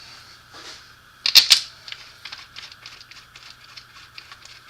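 Steel bolts and washers clicking and clinking as they are handled and set on the transfer case housing: two sharp clacks about a second and a half in, then a run of light ticks.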